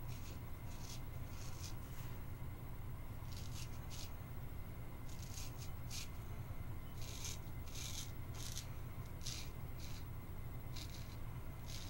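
Straight razor scraping through lathered stubble in short strokes: some fifteen brief, crisp rasps at irregular spacing, closest together about seven to ten seconds in.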